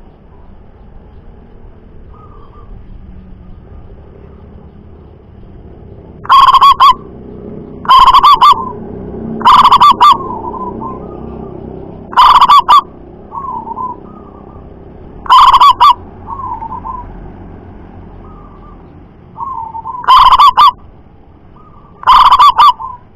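Zebra dove singing: from about six seconds in, seven loud coos come a couple of seconds apart, loud enough to distort, with softer trilled coo notes between them.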